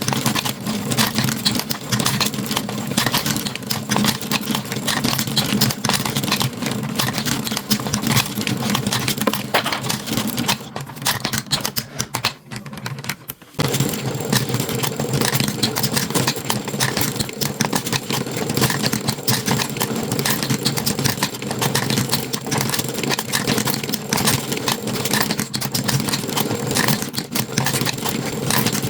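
Marbles rattling and clicking continuously along a toy marble run's track, a dense stream of small clacks over a steady low hum. The clatter thins out briefly near the middle, then picks up again.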